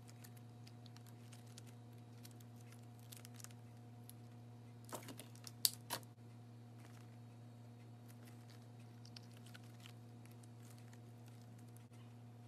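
Soft purple slime being squeezed and folded by hand, giving faint sticky crackles and small clicks, with a cluster of louder sharp pops about five to six seconds in as the slime is pressed and set down on the countertop. A steady low hum runs underneath.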